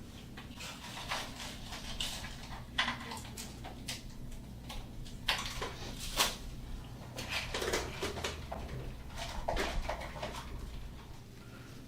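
Scattered soft clicks and rustles of hands handling small objects, over a steady low hum.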